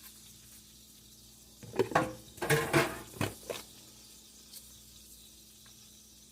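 Kitchen utensils and dishes clinking and clattering in a quick run of knocks about two seconds in, over a faint steady hum.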